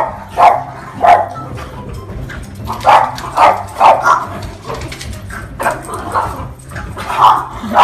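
Puppies barking in short, high yaps while they wrestle in play: three yaps in the first second, a cluster of four around the middle, and two more near the end.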